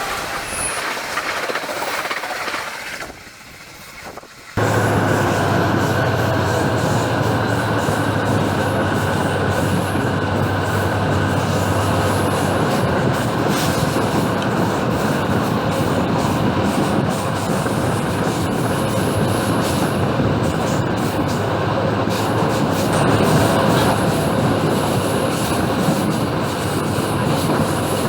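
A train running along the track, heard from the first coach behind an EMD GT18B diesel locomotive, with its EMD 645 two-stroke diesel engine and the wheels on the rails making a loud, steady rumble. About four and a half seconds in, the sound suddenly gets much louder, and a low steady hum lasts for several seconds.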